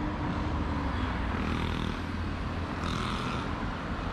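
Road traffic on a busy city road: a steady rumble of passing cars, with a brief hiss about three seconds in.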